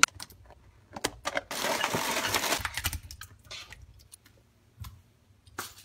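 Cognac poured from a bottle onto banana pudding in a glass bowl: a pouring rush of about a second, with scattered clicks and knocks before and after.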